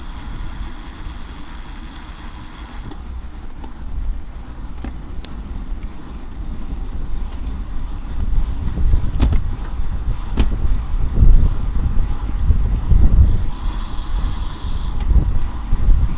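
Wind buffeting the microphone of a camera riding on a racing bicycle, a low rush that grows louder about halfway through. A few sharp clicks stand out around the middle, and a high thin buzz comes in near the start and again near the end.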